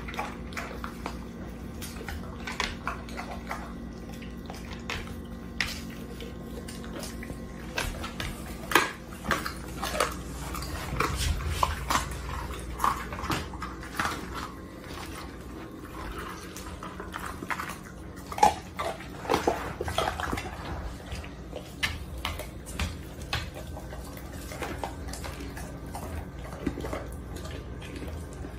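A dog eating a raw chicken off a tile floor: irregular crunching and clicking of teeth on bone and meat. A steady low hum runs underneath.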